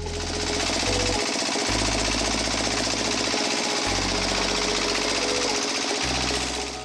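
Small electric motor and gear drive running steadily, with a fast, even mechanical clatter, the kind that drives a homemade miniature construction machine.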